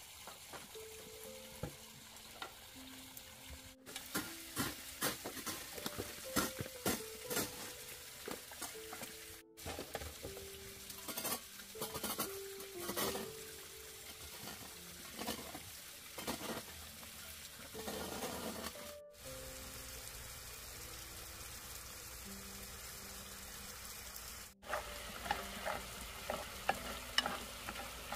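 Chunks of meat frying and sizzling in a wok, with the clicks and scrapes of stirring, under soft background music of slow held notes.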